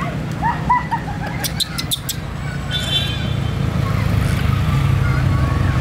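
A baby monkey gives a quick run of short squeaky calls that rise and fall, with fainter ones later, over a steady low hum. A few sharp clicks come about a second and a half in.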